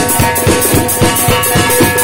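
Doyra frame drum and dovul drum playing a fast, even rhythm of about six or seven strokes a second, the doyra's metal rings jingling with each stroke, over a steady held tone.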